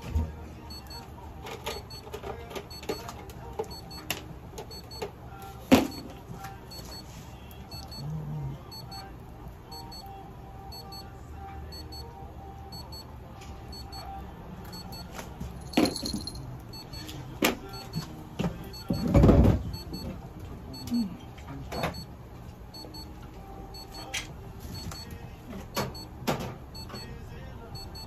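Scattered clicks, knocks and rustles of hands and materials handling a cat on a treatment table, over a steady low hum, with one louder rustling burst about two-thirds of the way through. A faint short beep repeats about every second and a half.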